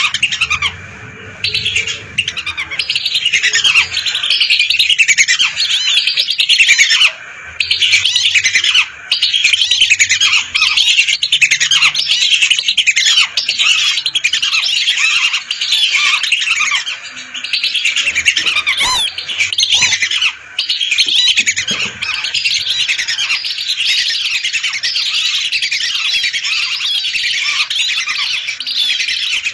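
A large flock of whistling ducks (belibis) calling together: a dense, continuous chorus of many high, short whistles overlapping one another, with a few brief gaps in the first several seconds.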